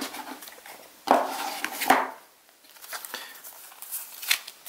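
Game cards and a small wooden cigar box being handled on a table. A sharp knock comes at the start, then about a second of loud rustling, then lighter clicks and rustles as the cards are spread out in the hands.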